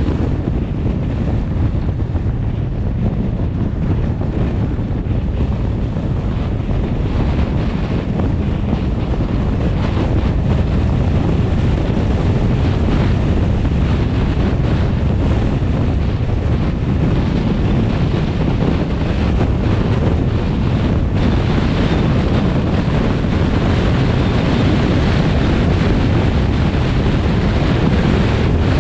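Wind rumbling on the microphone of a car driving along a highway, mixed with steady road noise, growing a little louder after about ten seconds.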